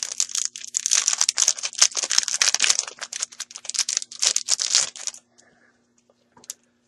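A foil Yu-Gi-Oh booster pack being torn open and crinkled by hand: dense crackling that stops about five seconds in, followed by a couple of faint clicks.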